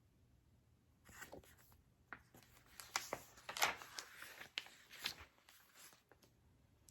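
Soft rustling and scattered light clicks of a picture book's paper pages being handled and turned.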